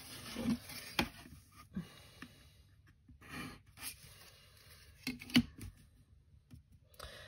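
A clear plastic 45-degree set square being handled and shifted over sheets of paper, with a sharp click about a second in and a few soft knocks around five seconds in as it is set down.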